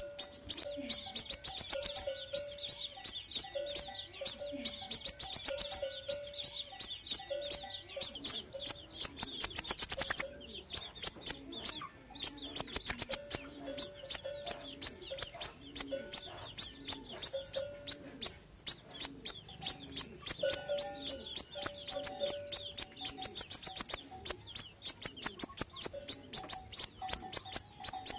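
Sunbird song: a fast, continuous stream of thin, very high chirps in long runs, with a short pause about ten seconds in, played as a lure call to draw birds in. A lower short note repeats underneath.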